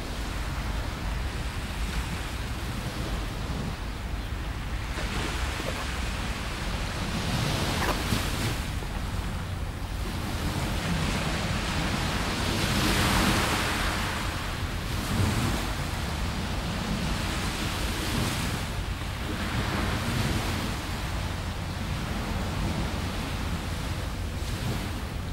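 Small waves breaking and washing onto a sandy beach, a hiss that swells and fades every few seconds, with steady wind rumbling on the microphone.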